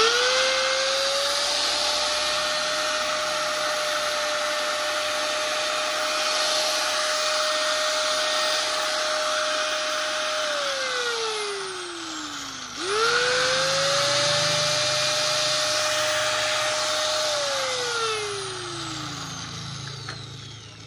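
Hitachi G10ML 100-volt angle grinder running free with no disc fitted: it spins up with a rising whine and runs steady for about ten seconds, then is switched off and winds down. It is switched on again at once, runs steady for a few seconds and winds down a second time near the end.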